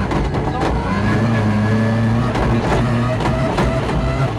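Ford Focus RS WRC rally car's turbocharged four-cylinder engine running under load inside the cabin, its note held fairly steady with the gearbox stuck in sixth gear, with frequent sharp clicks and knocks from the car.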